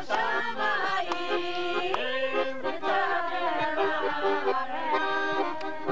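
A piano accordion playing a tune with a group of voices singing along, held accordion chords under the shifting melody.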